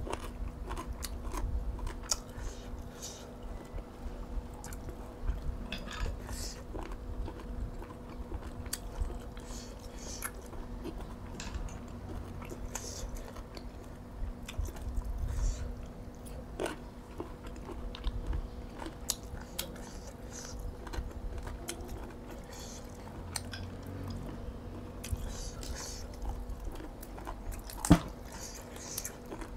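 A person chewing and biting into boiled apple snail meat and spicy pounded long-bean salad close to the microphone, with many scattered sharp clicks and a loud knock near the end.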